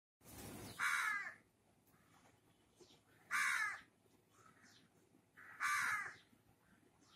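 A crow cawing three times, harsh calls about two and a half seconds apart.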